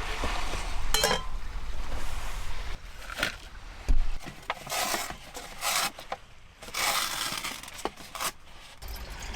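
A string of irregular knocks, clinks and scrapes of things being handled, several short noisy scrapes in the middle and a sharp knock about four seconds in.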